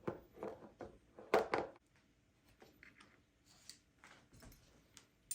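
Small parts and tools being handled at a workbench: a quick run of light knocks and scrapes in the first two seconds, then a few faint clicks, and a sharp click at the end.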